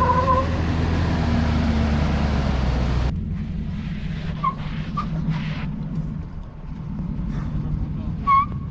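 Off-road SUV engines working on slickrock. First a Land Rover LR3 running under load, with heavy wind noise on the microphone and a short whistle-like tone at the very start. About three seconds in, the sound switches abruptly to a quieter low rumble from a first-generation Porsche Cayenne climbing, with a few short high chirps.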